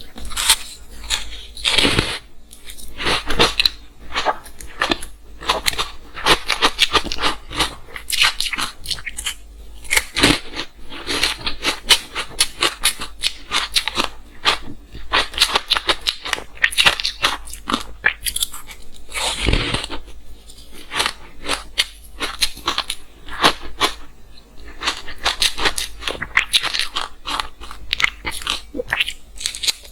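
Close-miked crunching and chewing of frozen matcha green tea ice: irregular crackling crunches of ice being bitten and chewed, with a few louder bites.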